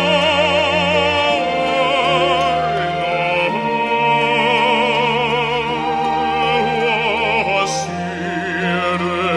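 A Christmas song sung in an operatic style, the voice wavering with wide vibrato over held orchestral accompaniment.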